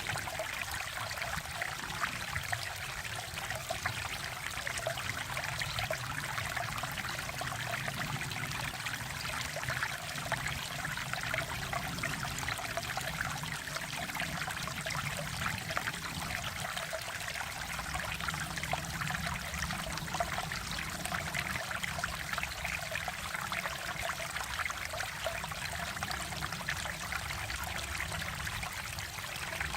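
Mountain valley stream flowing, a steady trickling and babbling of running water with no breaks.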